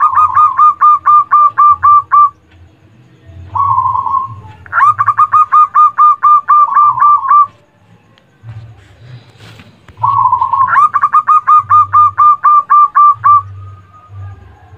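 Zebra dove (perkutut) singing three phrases. Each phrase is a short opening note followed by a quick run of about ten clipped, repeated cooing notes, with short pauses between phrases.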